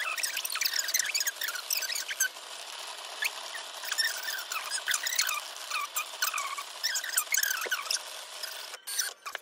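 Cricut vinyl cutting machine at work, its blade carriage and mat motors making rapid, high chirping squeaks and small clicks as the blade traces lettering into vinyl.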